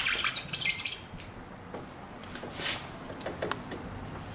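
High-pitched, uneven squeaking and scraping of a motorcycle's center stand rubbing against the tyre as the wheel turns. This is the common fault of the 追風 135 (RZR): the center stand's pivot shaft is worn, so the stand sags onto the tyre.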